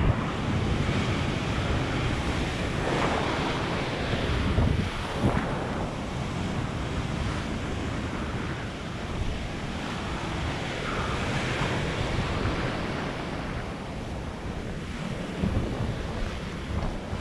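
Heavy surf breaking and washing in foam over a rocky reef, with wind buffeting the microphone. The wash swells louder now and then, notably a few seconds in and again near the end.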